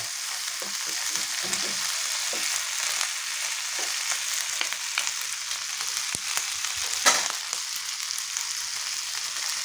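Chicken feet frying in hot oil with onion, garlic and ginger, a steady sizzle, as they are stirred and turned in the pan with a wooden spatula and a metal spoon, giving scattered small clicks. A sharp knock about seven seconds in is the loudest sound.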